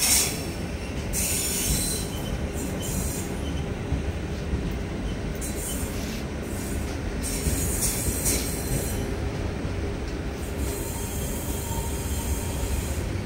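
Passenger train rolling slowly with a steady low rumble of wheels on the track, broken by repeated high-pitched wheel squeals that come and go every few seconds.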